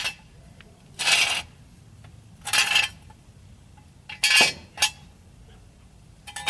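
Car jack and jack stand being worked under a car: a series of short metallic clanks and scrapes, about one every second and a half.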